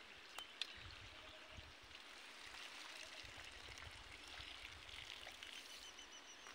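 Near silence: faint outdoor hiss, with two light clicks under a second in and a faint high chirping near the end.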